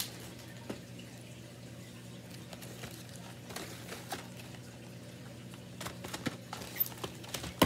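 Scattered light crinkles, rustles and taps of plastic wrap and packaged toys being handled while stuffing an Easter basket, growing busier in the second half with one sharper click near the end. A steady low hum runs underneath.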